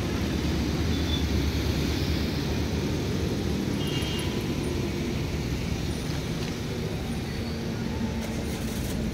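Steady low rumble of small car engines running at low speed, with general outdoor traffic noise.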